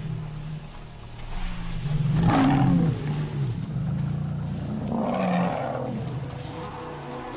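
Lionesses growling and snarling in low, rough calls, loudest about two seconds in and again about five seconds in.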